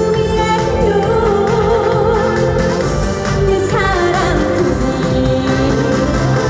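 A woman singing a Korean song live over a loud amplified accompaniment with a steady beat.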